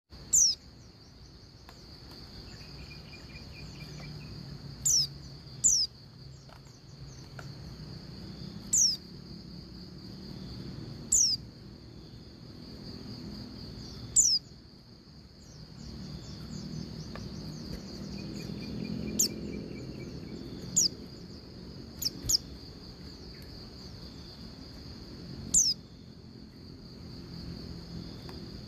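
Female pleci (white-eye) giving short, sharp calls that drop steeply in pitch, about a dozen of them spaced a few seconds apart, a few in quick pairs. These are the calls used to lure a male pleci into singing. A steady high-pitched buzz runs underneath.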